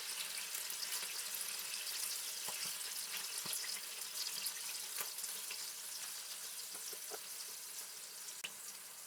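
Soy sauce and a little water sizzling and bubbling around diced chicken in a hot wok as the sauce comes up to a boil: a steady hiss that slowly fades, with a few faint clicks.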